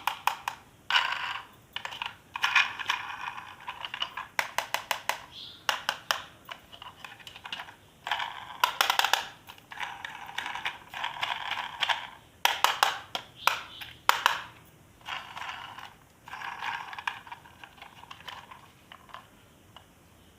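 Plastic toy parts and packaging being handled at close range: irregular clusters of sharp clicks and short rustling, crinkling bursts, with brief pauses between them.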